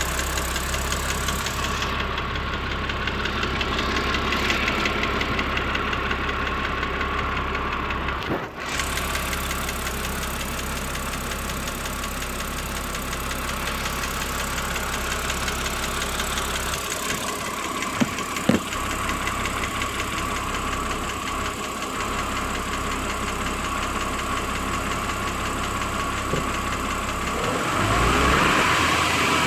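BMW N52 3.0-litre straight-six engine running at idle with a ticking noise, the tick that comes on once the engine has warmed up, 10–15 minutes after a cold start. Two sharp clicks sound about two-thirds of the way through, and near the end the sound gets louder.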